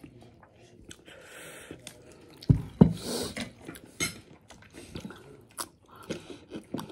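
A person eating rice biryani close up: wet chewing and mouth sounds, with a couple of sharp knocks about two and a half seconds in and scattered small clicks.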